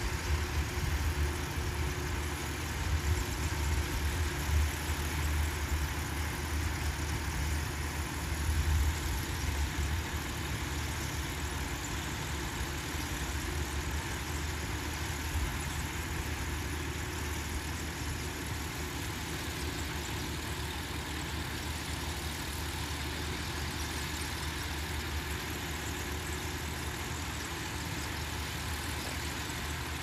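Rice combine harvester's engine running as a continuous low drone while it works the paddy, a little louder and more uneven for the first third, then steady.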